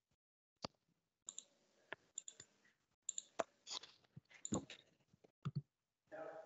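Faint, scattered clicks and small taps, about a dozen at irregular intervals, picked up through a video-call microphone.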